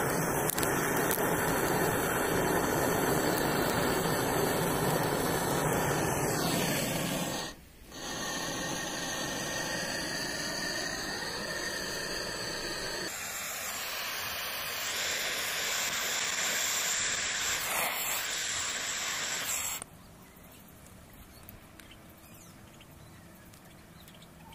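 Handheld butane gas torch running with a steady hiss, cutting out about seven seconds in. Then hissing and sizzling as the torch-heated metal ball scorches the corn kernels in a steel bowl. This stops suddenly about twenty seconds in, leaving only faint light clicks.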